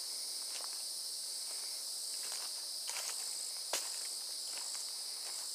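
Steady high-pitched chorus of insects, with irregular footsteps on a leafy dirt trail; a sharper snap comes about two-thirds of the way through.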